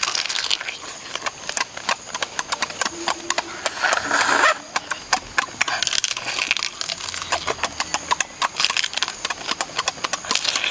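Close-up eating of cooked crab: wet chewing and sucking with a quick, steady run of crackling clicks as crab shell and meat are bitten and pulled apart, and a few louder slurping sucks along the way.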